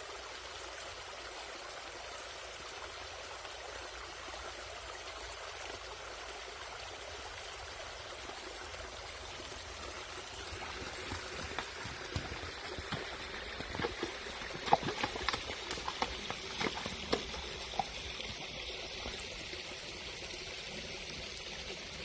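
A creek running with a steady rushing hiss. Over the middle stretch comes a run of sharp splashes and knocks as the horse's hooves step through the water and the stones of the creek bed.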